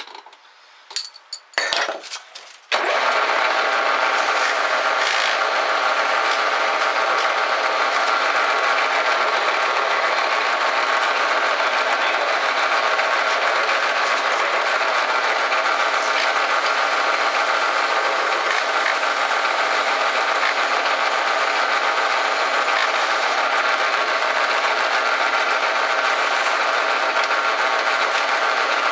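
A few light clicks of metal handling as a brass workpiece is set in a small metal lathe's chuck, then the lathe starts about three seconds in and runs steadily.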